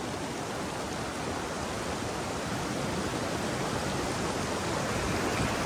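Fast glacial meltwater stream rushing steadily over rocks and around a stuck vehicle, getting a little louder near the end.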